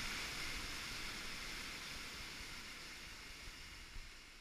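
River rapids rushing, a steady hiss of whitewater that fades out gradually.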